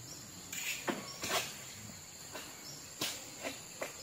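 Several short rasping strokes in two clusters, a long-poled harvesting sickle (egrek) cutting at an oil palm's frond stems, over a steady high drone of insects.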